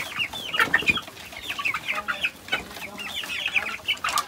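A flock of young chickens chirping and clucking all at once as they crowd in to feed, with a few short knocks among them.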